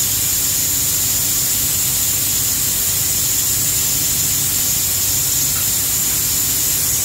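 Steady, loud hiss with a low hum beneath it, unchanging throughout, from machinery at a bridge-pier worksite.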